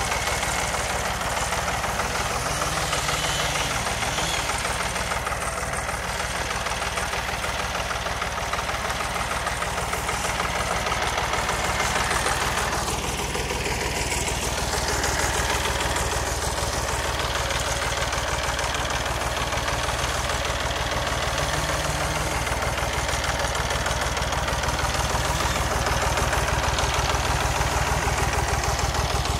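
1971 Massey Ferguson 135 Ebro tractor engine running steadily at a low idle, an even, fast knocking of firing strokes.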